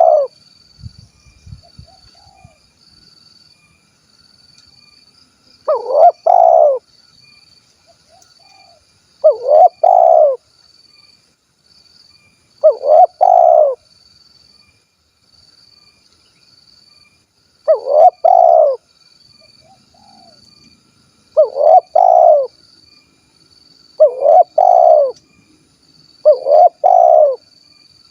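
Spotted dove (tekukur) singing its 'kuk 1' coo: a cooing phrase of about a second, repeated seven times at intervals of three to four seconds. A faint, high, evenly pulsing chirp runs underneath.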